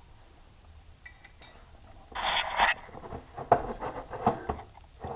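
A metal tool clinking and scraping on a bandsaw's wheel-adjustment bolts while the bottom wheel's tilt is set to make the wheels coplanar. Two ringing clinks come about a second in, then a short scrape, then a run of irregular clanks.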